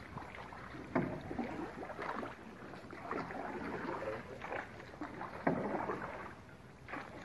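Flood water splashing and sloshing against a rescue boat as it moves through, with irregular knocks and splashes and wind on the microphone.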